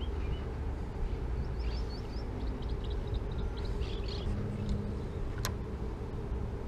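Steady low wind rumble on an outdoor microphone, with a few faint high chirps in the first half and one sharp click about five and a half seconds in.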